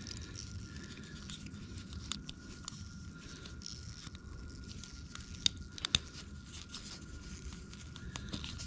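Quiet handling of a plastic electrical connector housing and its metal terminal pins as they are pushed in, with two small sharp clicks about half a second apart a little past the middle. A faint steady high-pitched tone runs underneath.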